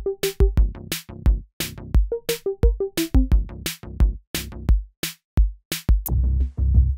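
Background electronic music: a drum-machine beat of sharp, evenly spaced hits over a deep kick drum, with a few short synth notes. A steady bass line comes in about six seconds in.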